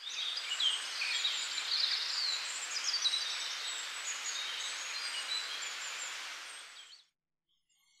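Birds chirping and calling over a steady hiss of outdoor ambience, as a short nature sound bed; it fades out about seven seconds in.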